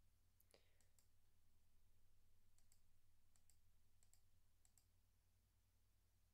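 Faint computer mouse clicks. There are a few light ticks in the first second, then four clicks at an even pace in the middle, each a quick press-and-release double tick.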